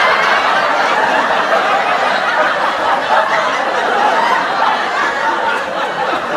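Sitcom studio-audience laugh track: a crowd laughing together, steady and unbroken.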